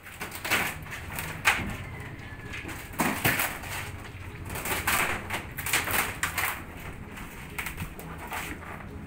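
Irregular scraping, cracking and knocking as a freshly cured fibreglass boat hull is pried loose and lifted off its mould, with the strongest sounds about half a second in, near 1.5 s, near 3 s and around 5 to 6 seconds in.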